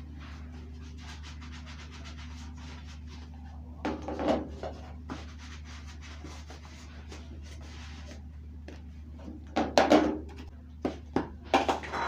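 Kitchen items being handled on a countertop, a plastic food container among them: a short clatter about four seconds in, then a run of sharp knocks and clatters near the end, over a steady low hum.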